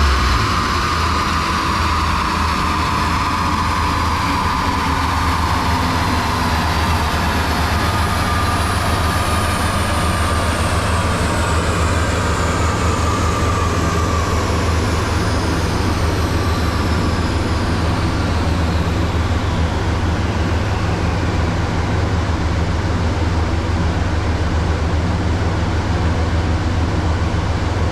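Mitsubishi 3000GT's turbocharged V6 idling steadily on a chassis dyno after a pull, while a high whine slowly falls in pitch over about twenty seconds as the rollers and drivetrain spin down.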